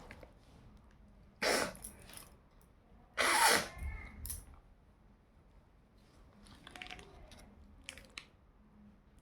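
Two short, breathy bursts from a person's nose and mouth, about two seconds apart, followed by a few faint clicks and rustles.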